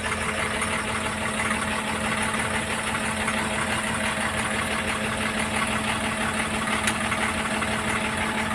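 Diesel engine of a piece of heavy earthmoving equipment running steadily at idle, with an even low hum.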